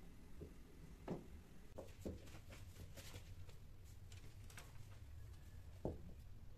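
Quiet indoor room tone with a steady low hum and a few scattered soft knocks and light ticks, the clearest about a second in and near the end.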